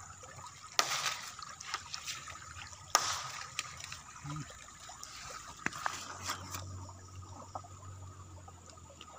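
Water trickling and splashing in a shallow stream, with a few sharp clicks, the loudest about a second in and again about three seconds in. A low steady hum comes in past the middle.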